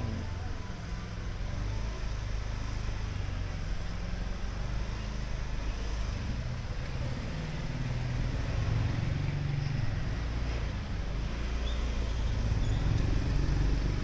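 Street traffic: motor vehicle engines, motorbikes and cars, running and passing as a steady low rumble that grows a little louder in the second half.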